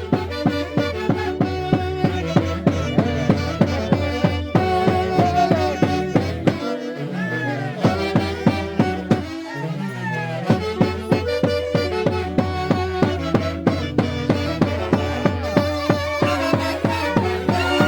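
Andean Santiago dance music: violins play the melody over a steady beat of about two to three strokes a second and a deep bass line. The bass drops out briefly twice in the middle.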